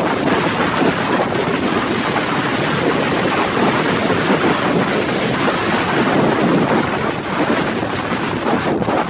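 Strong wind buffeting the camera microphone: loud, steady wind noise with small rises and dips.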